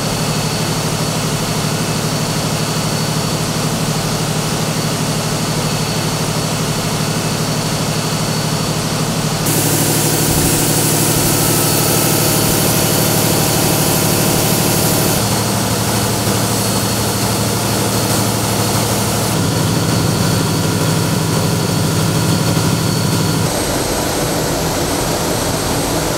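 Steady, loud running of plant machinery in a gas-fired heating power station, including a GE gas engine running, a low hum under a broad hiss. The sound shifts abruptly several times and is loudest and hissiest for several seconds in the middle.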